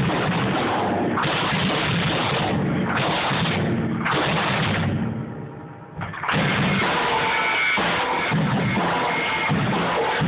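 Loud drumming with music, played continuously; about five seconds in the sound falls away for about a second before the full beat comes back in.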